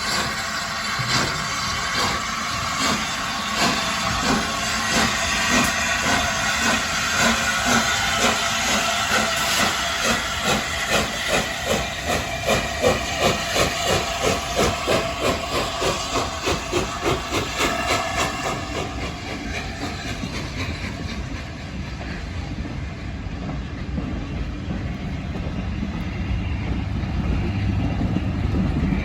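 LNER Peppercorn A1 Pacific steam locomotive Tornado pulling away with hissing steam, its three-cylinder exhaust beats quickening from about one a second to several a second. The beats fade about two-thirds of the way in, leaving a low, steady noise.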